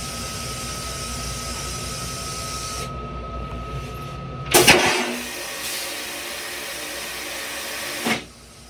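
Stainless-steel toilet in a Long Island Rail Road M3 railcar flushing: a sudden loud rush about halfway through settles into a steady hiss, then cuts off with a short knock just before the end. Before the flush there is a steady hum from the railcar.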